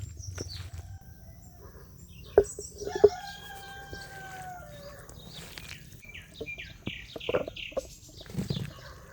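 Rooster crowing: one long call that falls in pitch at its end, with two sharp knocks about a second in, then a quick run of short high chirps.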